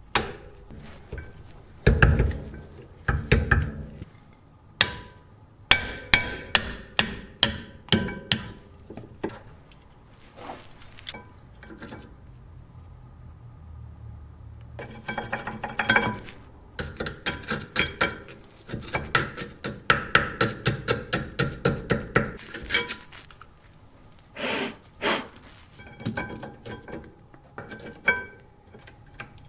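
Metal hand tools knocking and clicking on a car's rear brake assembly during a brake pad change. It is a series of sharp metallic strikes with a ringing tone, coming in runs of about three a second, with a couple of heavier knocks near the start.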